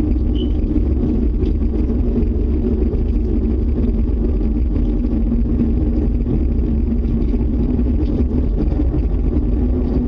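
A steady, loud low rumble with a droning hum on top, unbroken throughout: the kind of unexplained sky rumble presented as a 'strange earth sound'.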